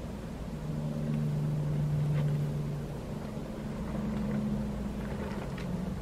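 A motor's steady low hum, holding one tone and then a slightly higher one, swelling a little and easing off.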